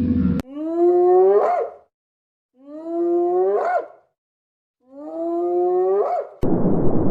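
An animal call, the same long call given three times with short silent gaps, each one rising sharply in pitch at its end. A loud rushing noise cuts in suddenly near the end.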